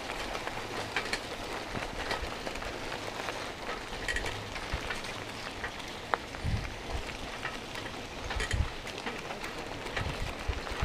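Steady noise of riding along a rough road, with scattered small clicks and rattles and several low wind thumps on the microphone in the second half.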